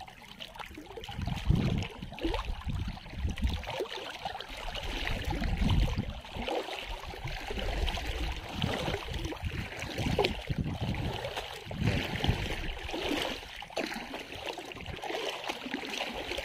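Pond water sloshing and splashing unevenly as a person wades through it hauling a wet gill net, with irregular low bumps of movement.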